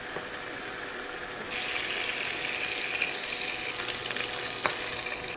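Hot butter and meatball grease sizzling in a skillet, a steady hiss that grows louder about a second and a half in. A single light knock from the wooden spoon comes near the end.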